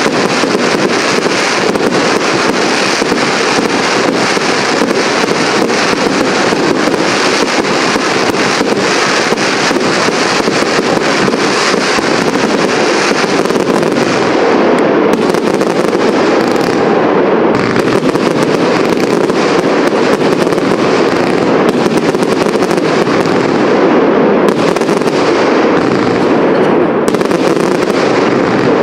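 Fireworks display: a dense, unbroken barrage of sharp bangs and crackling as many shells burst in quick succession, the rapid cracks thinning a little into more separate reports about halfway through.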